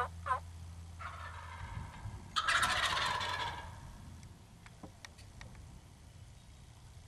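Wild turkey gobbling once, loudly, about two and a half seconds in: a rattling call lasting just over a second. At the very start come the last two notes of an evenly spaced run of turkey yelps.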